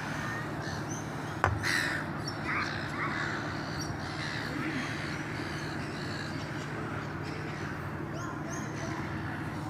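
Several short crow-like cawing calls over a steady low hum, with one sharp knock about a second and a half in.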